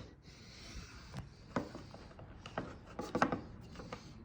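Faint handling sounds as the tip assembly is pulled out of a Powerprobe 3's plastic housing: a brief scraping rub, then scattered small clicks and taps, several close together about three seconds in.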